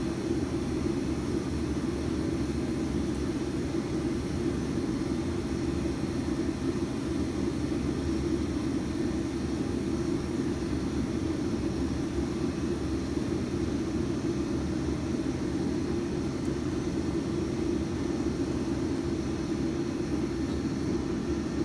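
Shop space heater running steadily, then shutting off suddenly at the very end.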